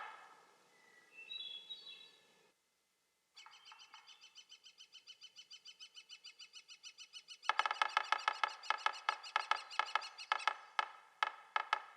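Yellow-bellied sapsucker: a few short call notes, then an even rapid series of about eight notes a second that grows louder, then loud drumming strikes that slow into irregular taps near the end.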